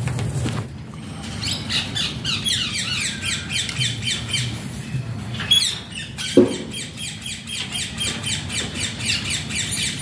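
A flock of green ring-necked parakeets calling in a fast, steady run of shrill repeated squawks, about five a second. A single sharp knock a little after six seconds stands out as the loudest sound.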